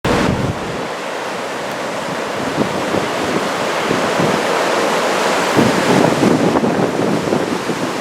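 Heavy ocean surf, big typhoon swell, breaking and washing ashore in a steady loud rush, with wind buffeting the microphone.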